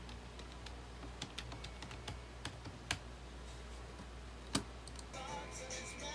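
Typing on a computer keyboard: soft, irregular keystrokes, with one sharper click about four and a half seconds in. Background music comes in near the end.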